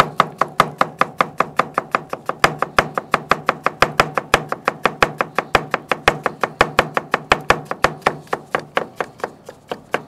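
Knife slicing a cucumber on a plastic cutting board: quick, even chops, about five a second.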